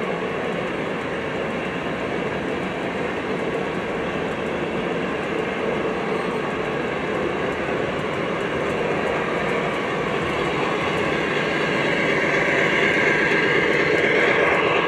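O scale model coal train running past: loaded hopper cars rolling on the track with a steady clatter that grows a little louder near the end.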